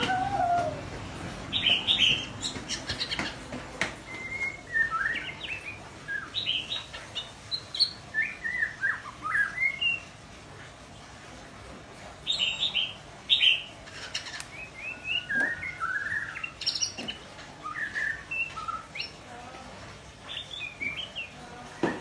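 Young white-rumped shama practising its song: a run of short, varied whistled and chirping notes, broken by a pause of about two seconds midway.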